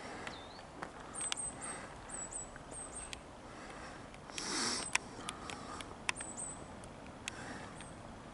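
Small birds chirping: very high, thin, short falling notes repeated in little groups. Scattered sharp ticks run through it, and there is a brief hissing rustle about four and a half seconds in. The airliner overhead is not clearly heard.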